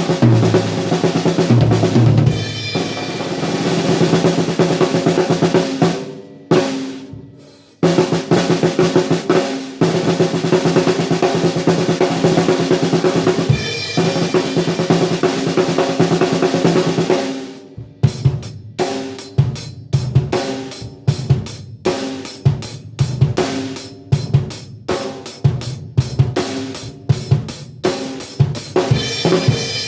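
6×14 inch seamless acrylic snare drum, just tuned a little higher, played with fast rolls that ring on, stopping briefly twice, then from about 18 seconds in with separate strokes a couple of times a second.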